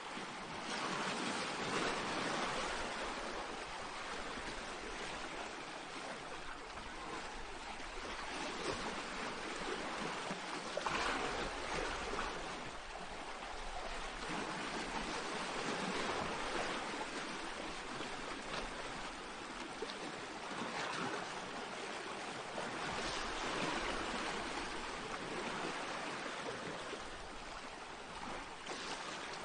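Small sea waves washing onto a pebble beach: a steady wash of surf that swells and eases every few seconds.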